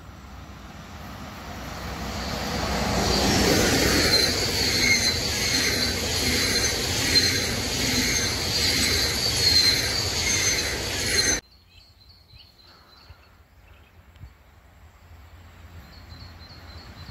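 SBB double-deck passenger train approaching and running past at speed: the rush of wheels on rail grows loud, with a repeating rhythm as the coaches go by. It cuts off abruptly about 11 seconds in, leaving a much fainter sound of another train approaching that swells near the end.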